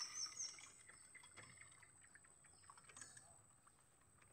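Near silence, with a few faint scattered clicks.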